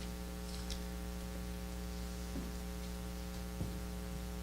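Steady electrical mains hum with a buzz of many overtones, and a few faint clicks.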